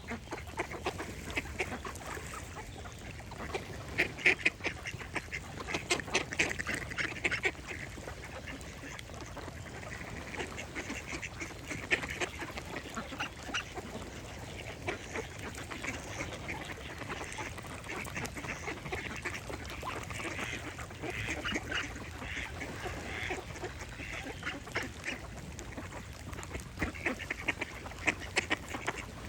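Ducks quacking in bursts of rapid, repeated calls, with quieter stretches between, over a steady low background.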